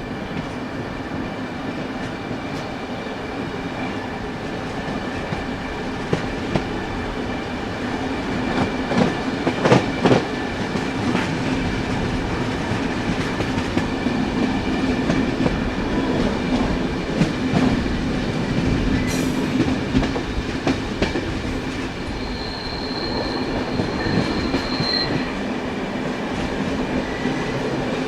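Train wheels rolling on rails, a steady rumble with frequent clicks over the track. A thin high whine rises over it for a couple of seconds past the middle.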